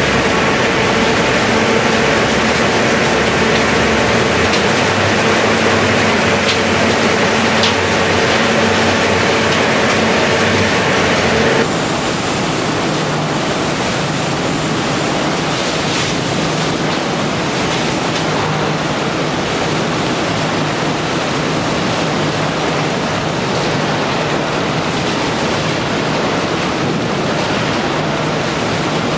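Waste shredding and screening plant machinery running: a loud, steady roar with several steady hums. About twelve seconds in it changes abruptly to a different steady roar with a lower hum, as the view moves to the running star-type fines screen and its gear motors.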